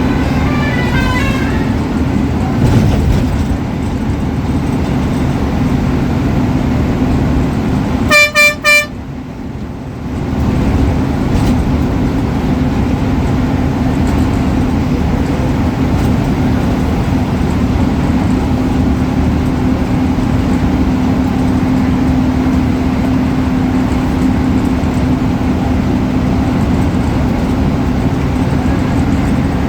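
Ashok Leyland BS4 bus diesel engine running steadily, with three short horn blasts about eight seconds in.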